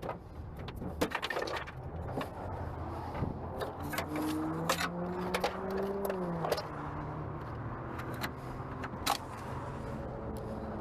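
Scattered metallic clinks and clatter of hand tools and loose parts during car disassembly, over a steady low hum. About four seconds in, a pitched whine holds for about two and a half seconds, then drops away.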